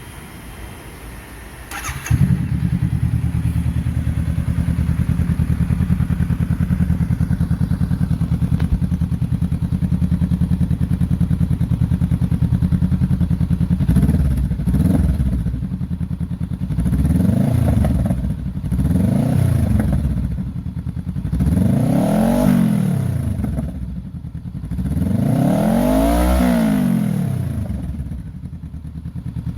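Honda Rebel 500's parallel-twin engine through an aftermarket Orion twin muffler, starting up about two seconds in and idling steadily. In the second half it is revved five times, each rev rising and falling back to idle, the longest near the end.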